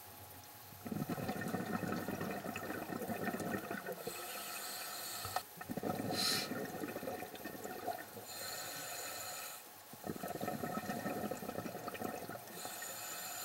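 A scuba diver breathing through a regulator: three long exhalations of bubbling rumble, each followed by the hiss of an inhalation through the regulator.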